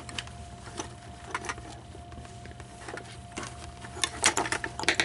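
Scattered light clicks and taps of small screws and plastic parts being handled during reassembly, with a denser cluster near the end, over a faint steady hum.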